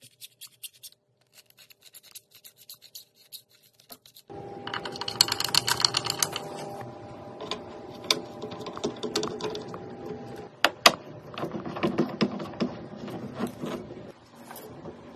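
Hard parts being handled and fitted together: a few sparse clicks and taps at first, then, from about four seconds in, busy clicking, scraping and rubbing with several sharper snaps.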